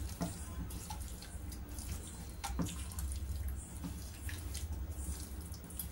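A hand squishing raw chicken pieces with spices and ginger-garlic paste in a stainless steel bowl: soft wet squelching with a few faint clicks, over a steady low hum.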